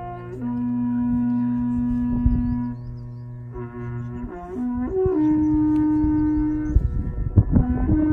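Replica of the Ardbrin trumpet, an 8-foot Iron Age horn, sounding long held notes over a low steady drone, the pitch stepping up and down a few times.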